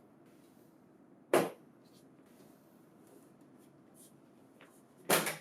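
A single sharp clack about a second in as the booklet finisher is latched onto the printer, over faint room tone.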